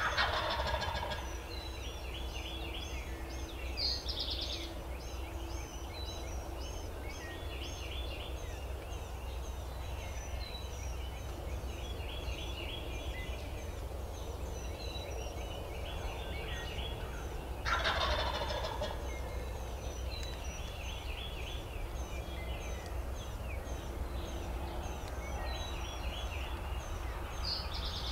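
Wild turkey gobbling twice, about eighteen seconds apart, each gobble falling in pitch over a second or so. Small songbirds chirp steadily around it, over a low steady rumble.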